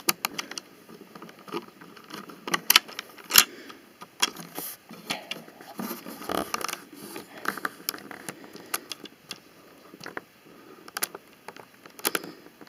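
Plastic Lego bricks and wheels clicking and rattling as a hand-built Lego launcher is loaded and handled, with scattered sharp clicks; the sharpest comes about three and a half seconds in.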